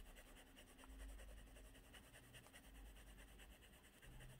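Near silence with the faint scratch of a fountain pen's medium nib scribbled back and forth on paper, worked to get a drying nib writing again.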